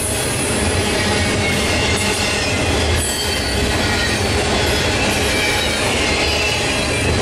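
Double-stack intermodal container train's well cars rolling past at close range: a steady, loud rumble and rattle of steel wheels on rail, with faint high wheel squeal coming and going.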